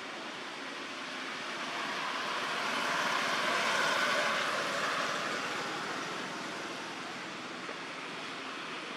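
A passing vehicle: a rushing hiss that swells to its loudest about four seconds in, then fades back to a steady background noise.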